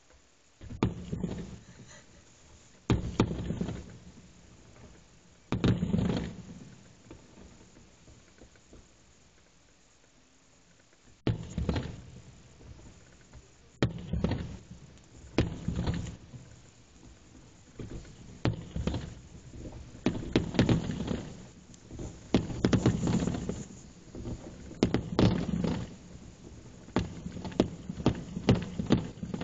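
Aerial firework shells bursting in a series of booms, each dying away over a second or so. A few seconds apart at first, they come thicker and faster in the second half.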